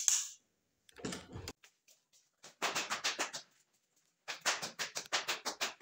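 A single click, then two quick runs of sharp taps, about seven a second, each lasting around a second.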